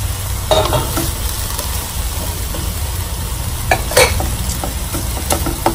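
Pork and raw shrimp filling sizzling in a hot frying pan as it is stirred, with a few sharp knocks of the utensil against the pan in the second half.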